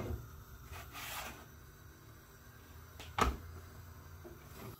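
Faint rubbing and handling sounds, with a brief scrape about a second in and a short knock about three seconds in, over a low background hum.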